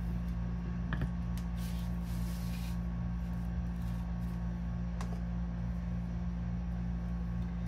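Faint handling of a metal sand-casting flask and a wooden block: a light click about a second in, a soft rub at about two seconds and another light tick at about five seconds, over a steady low hum.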